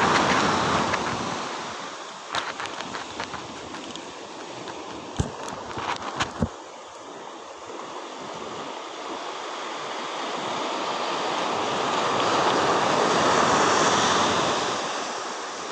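Shallow sea water washing and lapping, swelling at the start and again near the end. A few sharp clicks and knocks come a couple of seconds in and again around six seconds in.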